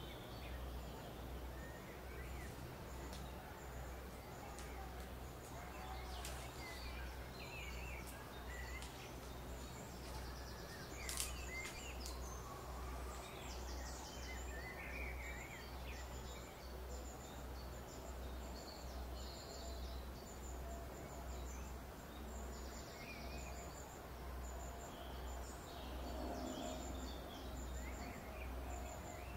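Woodland ambience with birds calling and chirping on and off, over a low pulsing hum. A single sharp click sounds about eleven seconds in.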